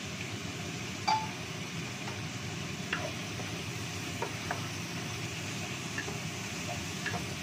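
A wooden spatula stirring and knocking against a nonstick wok while ground spice paste is fried. There are about half a dozen light knocks and clinks over a steady background noise; the sharpest, with a short ring, comes about a second in.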